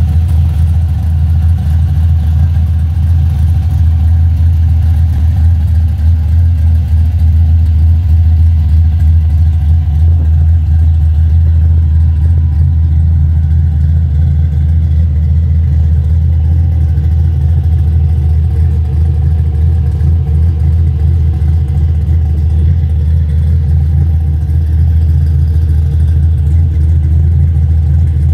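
1992 Fox-body Ford Mustang's engine idling steadily, heard loud from behind the car near its exhaust outlets.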